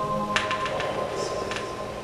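Background music of sustained chords that thin out about a third of a second in, with a quick run of sharp clicks just after and another click around a second and a half.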